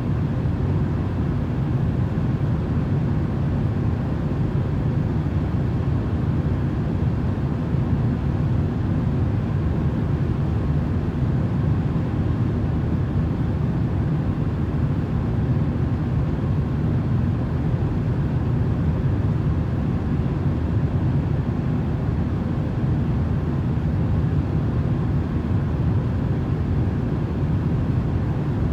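Steady, unchanging low rumbling noise used as a sleep-aid noise track, deep and even with faint steady hums in it.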